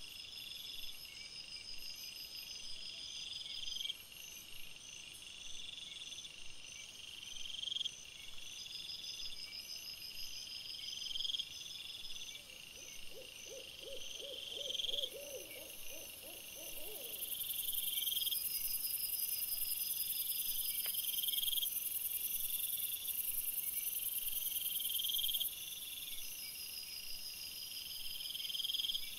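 Night insects chirping in a repeating pattern of short high bursts about once a second. About halfway through comes a rapid run of low hooting notes lasting a few seconds, and a high steady hiss joins in for several seconds in the second half.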